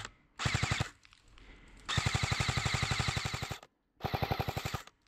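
Airsoft gun firing on full auto in three bursts of rapid shots: a short burst, a long one of nearly two seconds, then another short one.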